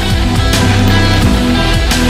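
Background rock music with guitar and occasional drum hits.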